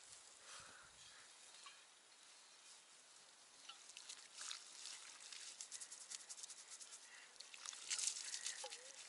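Water poured from a metal bowl over a person's head, splashing and pattering onto hair, a metal basin and rocks. Quiet at first; the splashing starts about four seconds in and is loudest near the end.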